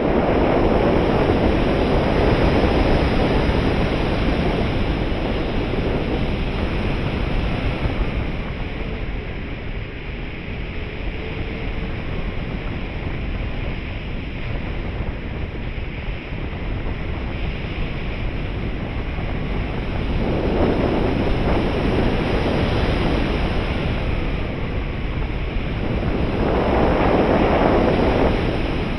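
Wind noise from the airflow rushing over an onboard camera's microphone on an RC glider in flight. It is a steady rush that swells louder near the start and twice more in the last third.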